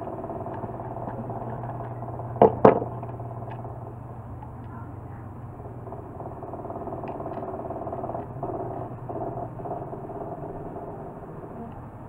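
Two sharp clicks close together about two and a half seconds in, from handling the plastic casing and switch of a hair dryer, over a steady low hum.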